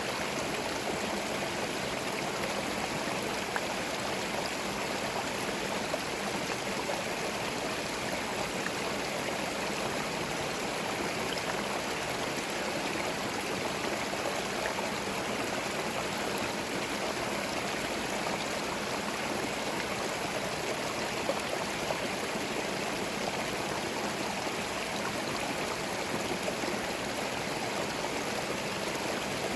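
A small forest stream running steadily, water gurgling and trickling over stones.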